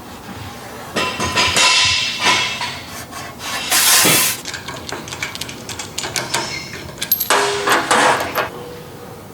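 Metal being worked by hand: an irregular run of knocks and clanks with some ringing, and a short, louder rush of noise about four seconds in.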